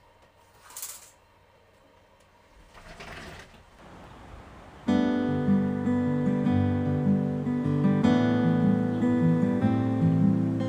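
A curtain swishes once as it is drawn open, about a second in. Strummed acoustic guitar background music starts about five seconds in and carries on.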